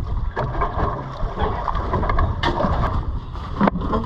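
Wind buffeting the microphone over the rumble of sea and boat, with a few sharp knocks at intervals.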